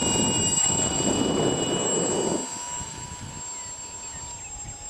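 Superzoom profile RC airplane's electric motor and propeller whining at a steady pitch, dipping slightly near the end, under wind rushing across the microphone that drops away about two and a half seconds in.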